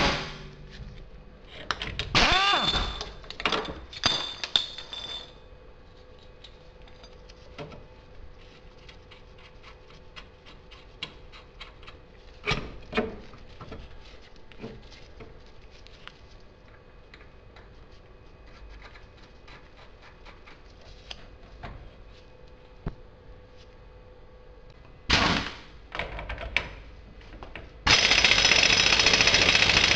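A few metal clanks and knocks with a little ringing, then a long stretch of small handling clicks. Near the end a Craftsman impact wrench fires briefly, then runs steadily, hammering on the front axle hub nut.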